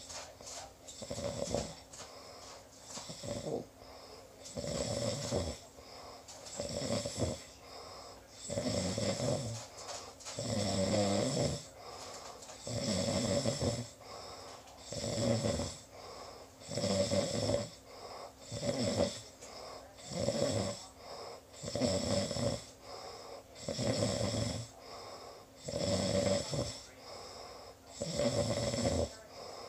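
A sleeper snoring steadily, one snore about every two seconds.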